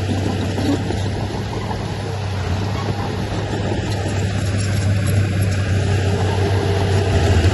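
Diesel engine of heavy earthmoving machinery running with a steady low drone, growing a little louder over the last couple of seconds.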